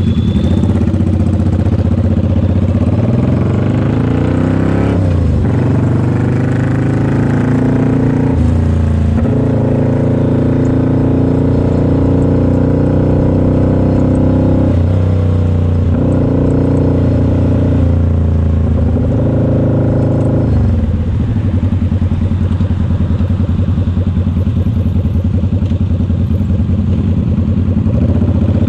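Suzuki Intruder cruiser's V-twin engine pulling away from a stop, rising in pitch through about four gear changes, then running steadily at cruising speed.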